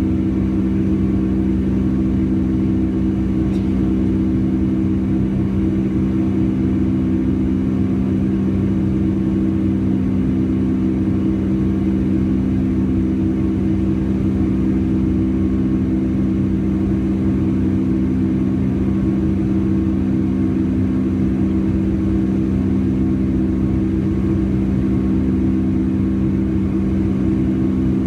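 Boeing 757-200 jet engines running at a steady pitch, heard inside the passenger cabin as a loud, unchanging drone with several steady low hum tones.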